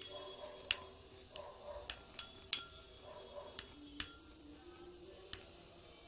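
Metal spoon clinking against a glass bowl while a thick Vaseline paste is stirred: irregular sharp clinks, about eight of them, some close together.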